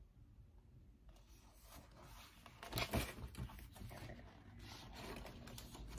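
Printed cross-stitch pattern sheets being handled and shuffled, rustling faintly, with a louder burst of paper rustle about three seconds in.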